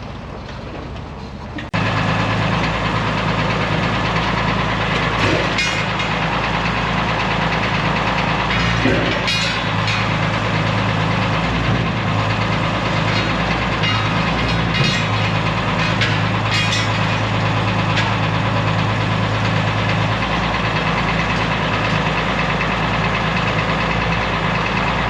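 International Harvester 606 tractor engine running steadily just after a cold start; it gets suddenly louder about two seconds in.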